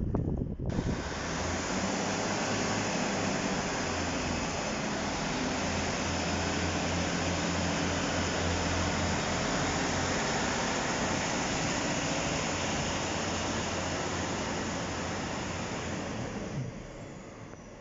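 Class 156 diesel multiple unit pulling away from the platform: a low, wavering engine hum under a steady rushing hiss, which drops away sharply near the end.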